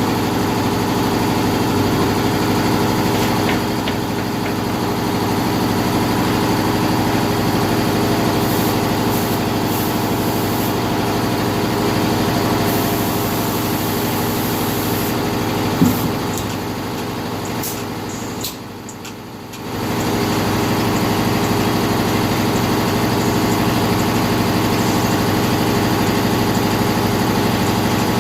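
A machine running steadily, a constant hum of several pitched tones, with a sharp click about 16 seconds in and the hum dropping away briefly a couple of seconds later before coming back.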